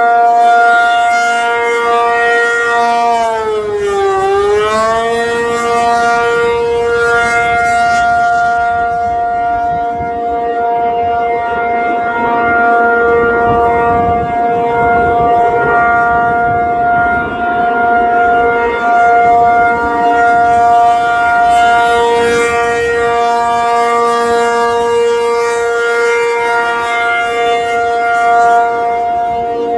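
ACA P-50 outdoor warning siren sounding a steady alert tone. Its pitch sags briefly about four seconds in and winds back up, then holds, swelling and fading slightly in loudness.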